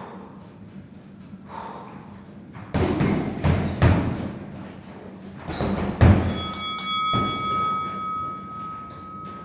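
Punches thudding into a heavy punching bag in two quick flurries of several blows each. About six seconds in, a steady ringing tone starts and holds to the end.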